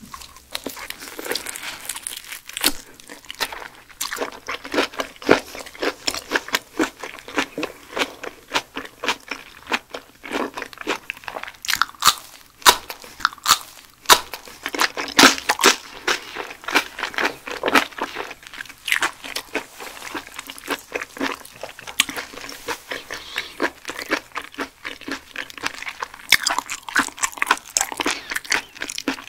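A person biting and chewing raw striped mullet close to the microphone: a dense run of short chewing clicks and crunches, several a second.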